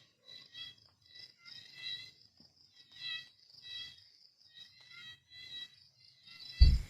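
Short high-pitched chirps repeating about one and a half times a second, like a cricket or frog chorus. A loud low thump near the end.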